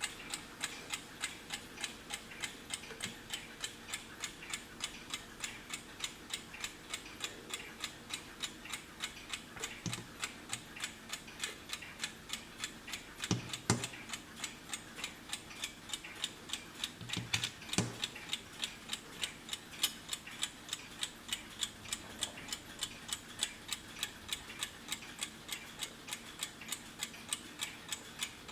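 Wehrle mechanical alarm clock ticking with a fast, even beat, with a few louder knocks about halfway through.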